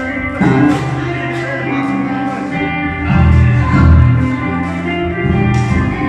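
A live band playing during a sound check: a bass guitar's low notes moving every half second or so under electric guitar and keyboard, with drum and cymbal hits.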